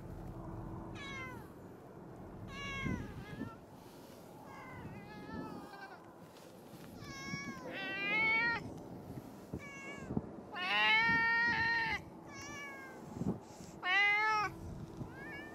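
Calico cat meowing again and again, about ten meows, some short and some drawn out; the loudest and longest, about a second and a half, comes around two-thirds of the way through.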